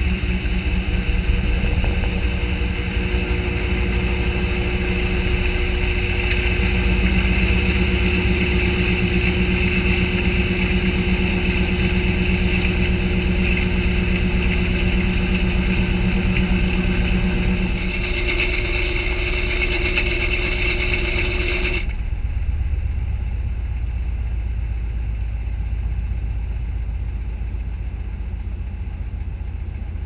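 Whirlpool WTW4900BW high-efficiency top-load washer spinning its basket, heard from inside the tub: a steady motor hum with a whine. About two-thirds of the way through, the motor sound cuts off, leaving a lower rumble as the basket coasts.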